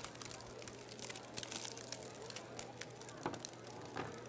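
Faint, scattered clicks and crinkles as balloons frozen in liquid nitrogen are lifted out with metal tongs and set down on a table, the cold rubber crinkling as it warms. A low steady hum runs underneath.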